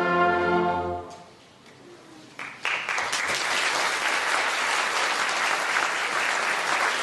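An orchestra's held final chord dies away about a second in. After a brief hush, an audience breaks into sustained applause.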